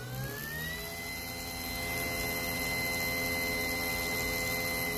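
3D-printed axial-flux brushless DC motor with dual stators and triple rotors spinning up, its electric whine rising in pitch through the first second, then running at a steady speed with an even whine and hum.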